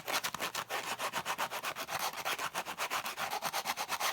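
Sandpaper rubbed by hand over wood in fast, even back-and-forth strokes, several a second.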